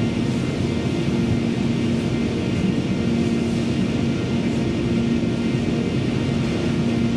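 Interior running noise of a CAF Class 331 electric multiple unit on the move: a steady rumble of wheels on rail with a steady low hum under it.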